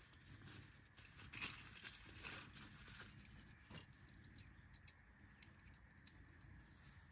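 Near silence, with faint rustling and light clicks of a small object being handled by hand, the loudest about one and a half seconds in.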